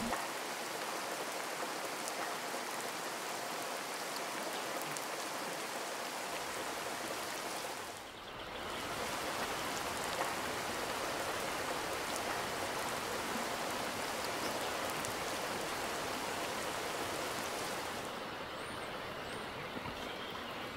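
Steady rushing of water filling the forest, with a brief dip about eight seconds in. Near the end the hiss thins and two faint, short high chirps sound.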